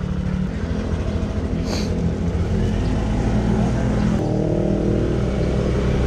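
Yamaha NMAX 155 scooter's single-cylinder engine running as it pulls away at low speed, its note shifting up about four seconds in. The sound is dull and muffled, picked up by the action camera's own microphone.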